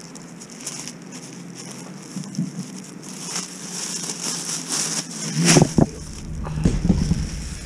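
Rustling and crackling of plastic rubbish sacks being handled, with heavy low thumps about five and a half seconds in and a low rumble near the end.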